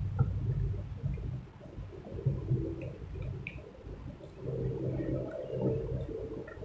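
Close-mic'd eating sounds: soft wet chewing and mouth noises with scattered small clicks, over a low uneven hum.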